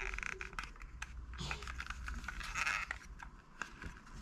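Plastic casing of a Ben 10 basic Omnitrix toy being handled and fitted together: light scraping of the top cover against the base and scattered small plastic clicks.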